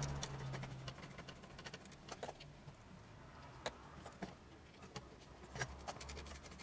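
Light, scattered clicks and taps of a hex driver and small screws against a carbon-fibre helicopter frame and its aluminium mounts as the screws are fitted, with faint handling rustle. A low hum sounds briefly in the first second.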